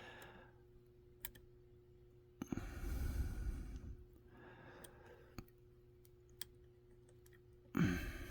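A few faint, scattered clicks of a disc-detainer pick turning the discs inside an Anjai Bao 40 mm disc-detainer padlock. Two audible breaths fall between them, one about two and a half seconds in and one near the end.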